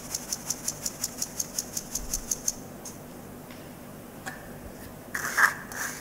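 Fine-mesh stainless sieve tapped and shaken to sift powdered sugar and toasted flour into a bowl: a quick, even run of light rattling taps, about seven a second, that dies away about two and a half seconds in. Near the end come a few louder scrapes.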